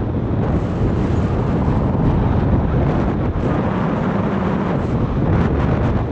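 Wind noise on the microphone of a paraglider pilot's action camera in flight: a loud, steady rush of airflow buffeting the mic, heaviest in the deep rumble.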